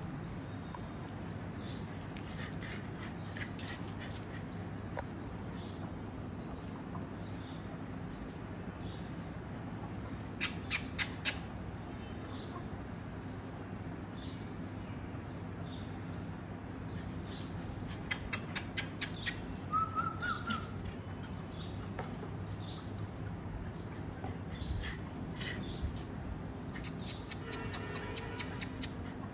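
Three short bursts of rapid, harsh bird calls, a third of the way in, just past halfway and near the end, over a steady low hum; a brief run of rising squeaky cries just after the middle.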